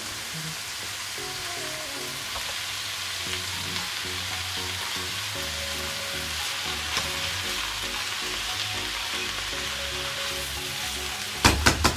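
Diced vegetables sizzling in a frying pan with just a little oil, stirred with a silicone spatula. A quick run of loud knocks comes near the end.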